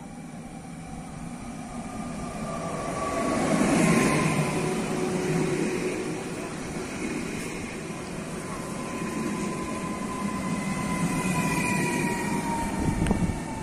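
Electric multiple unit of Koleje Dolnośląskie running in along the platform, its rumble loudest as the front passes about four seconds in. Its motor whine falls slowly in pitch as it slows. A single sharp knock comes near the end.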